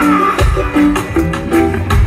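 Live reggae band playing: a repeating bass line and drums with electric guitar.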